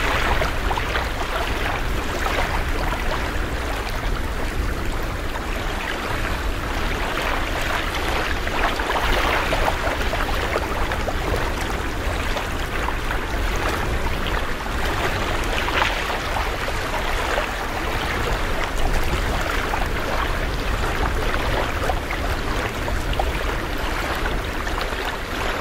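Steady seaside ambience: a continuous rushing wash of wind and surf, with a strong low rumble underneath.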